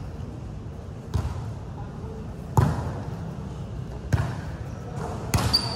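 A volleyball being struck back and forth in a rally, four sharp hits about a second and a half apart, echoing around the hall. A thin high tone starts near the end.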